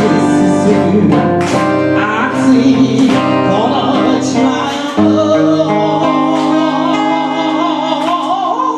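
Enka song with band accompaniment: a few seconds of strummed backing, then from about three seconds in a singer holds one long note with wide vibrato over sustained chords.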